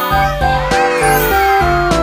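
Background music: a melody of held notes stepping down in pitch over a steady bass, with jingly chimes on top.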